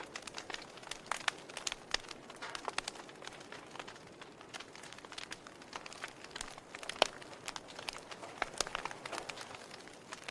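Fire in a fireplace crackling: irregular sharp pops and snaps over a soft hiss, with the loudest pop about seven seconds in.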